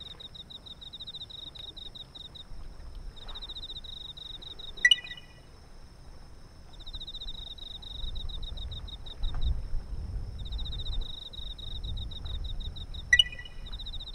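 Night insects trilling: a fast pulsed high trill in bouts of a few seconds, over a steady thin high whine. Two short, sharp chirps stand out, about five seconds in and near the end, and a low rumble rises in the second half.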